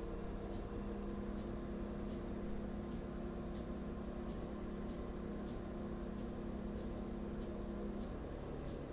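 Diesel multiple unit (DMU) train rolling slowly, heard from inside the carriage: a steady engine hum over a low rumble, with faint high ticks about every two-thirds of a second. The hum changes pitch about eight seconds in.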